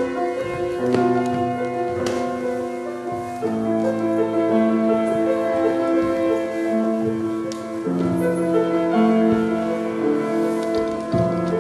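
Slow instrumental music of long held chords that change every second or two, with a piano-like sound.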